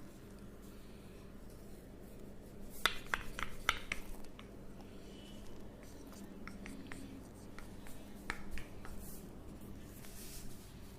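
Massage sounds: hands or a gua sha tool rubbing over skin and hair, with a quick run of sharp clicks and taps about three seconds in and a few more near eight seconds.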